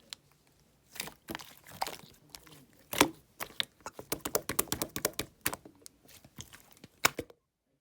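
Light-blue slime being squished and pressed by hand, making a run of sharp clicks and crackly pops that come thickest in the middle and stop abruptly near the end.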